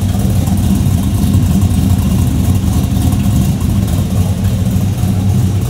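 1977 Chevrolet C10's small-block V8 idling steadily through new headers and Flowmaster Hushpower HP-2 mufflers, heard at the tailpipe: a loud, nice and lumpy idle.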